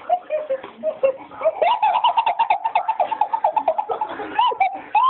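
A person laughing hard and high-pitched while being tickled, in rapid breathless bursts that come thicker and faster about a second and a half in.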